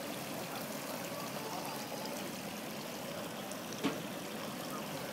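Steady running and trickling water at an ornamental fish pond, with one faint click nearly four seconds in.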